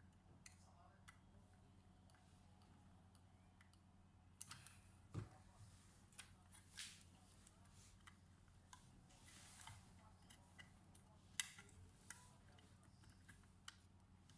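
Faint, scattered light clicks and taps of small laptop parts and tools being handled, with a duller knock about five seconds in, over a steady low electrical hum.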